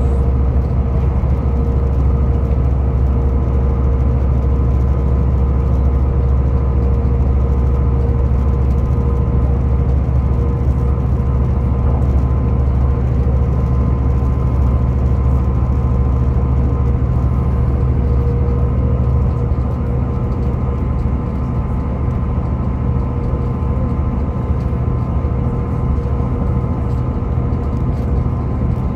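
Steady drone of a Class 158 diesel multiple unit running at speed, heard inside the carriage: the underfloor diesel engine's low hum, rumble of wheels on rail and a steady whine. It eases slightly about twenty seconds in.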